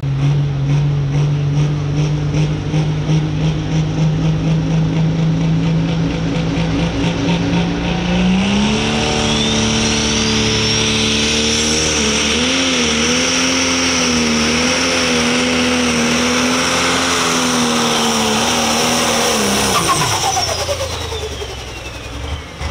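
Pro Stock pulling tractor's turbocharged diesel engine idling, then opened to full throttle about eight seconds in. The revs climb and a rising turbo whistle comes in. It holds at high revs, wavering, for about eleven seconds, then the throttle is cut about twenty seconds in and the turbo whistle winds down.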